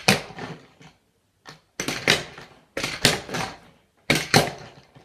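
Handboard popped and landed on a tabletop: sharp wooden clacks in quick pairs, the tail snapping down and then the board landing, four times about a second apart.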